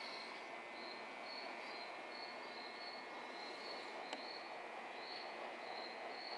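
Faint steady background noise with a high-pitched chirp repeating about twice a second, and one faint click about four seconds in.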